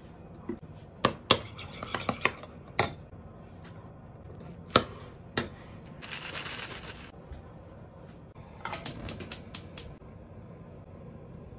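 Metal spoon clinking and knocking against a bowl while ingredients are spooned in and mixed into batter, in clusters of sharp clinks, with a soft scraping stir of shredded cabbage about six seconds in.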